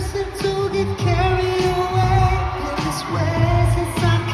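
Live pop music over a concert sound system: a heavy, repeating bass beat with singing on top.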